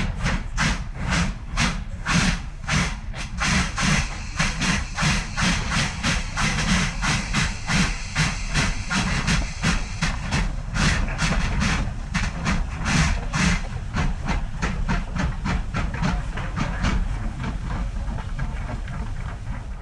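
Steam locomotive chuffing steadily: a quick, even rhythm of hissing exhaust beats, about three to four a second, over a low rumble.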